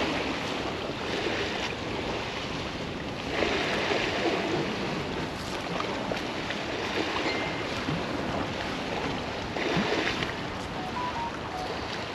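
Estuary waves washing against the bank on a very high tide, mixed with wind on the microphone. The wash swells louder a little over three seconds in and again near ten seconds.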